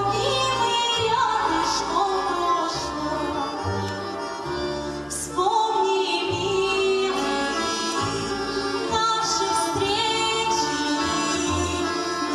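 A song: a woman singing long held notes over instrumental backing with a steady bass line.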